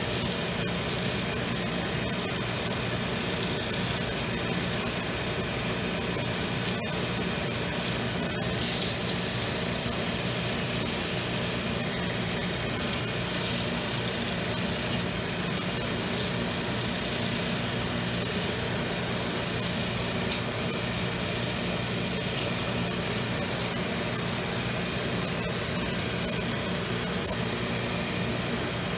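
Shoe-repair finishing machine running steadily, with a sole being sanded against it.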